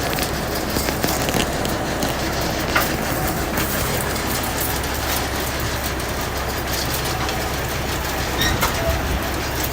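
WM 8500 potato harvester running: a steady mechanical rumble and rattle, with a few sharp knocks.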